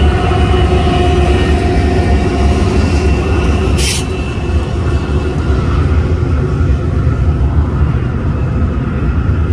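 Diesel-electric freight locomotives, a BNSF GE AC4400CW leading, rolling past close by with a steady low engine rumble. A short burst of hiss comes about four seconds in.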